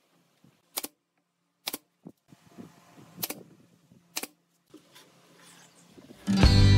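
Four sharp clicks about a second apart, with faint handling noise between them, as wooden cabinet parts and a panel are fitted and handled. Background music starts near the end.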